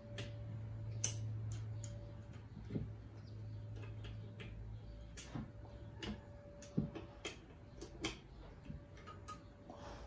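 Small open-end wrench clicking and tapping against the nuts and metal housing of a washing-machine motor as its end-bell bolts are tightened: scattered sharp metallic clicks at an uneven pace, the loudest about a second in. A low steady hum fades out about halfway through.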